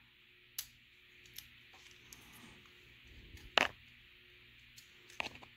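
A few sparse, sharp clicks and taps as a screwdriver tip and fingers work the plastic switch housing and metal contact tab of an electric kettle's base, the contact being pried and bent; the loudest click comes about three and a half seconds in.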